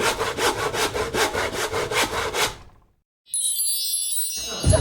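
Rhythmic sawing, about five strokes a second, lasting a couple of seconds and then stopping. After a short silence, a bright, high shimmering chime sound comes in near the end.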